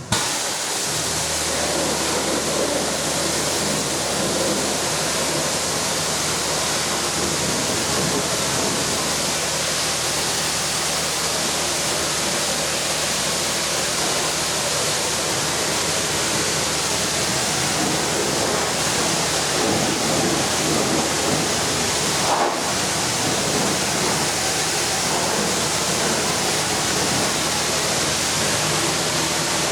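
High-pressure washer spray, a steady loud hiss of water jetting onto a combine harvester, with a momentary break about three-quarters of the way through.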